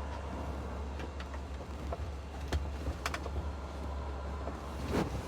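A few scattered light clicks and taps, like small tools and plastic parts being handled, over a steady low hum.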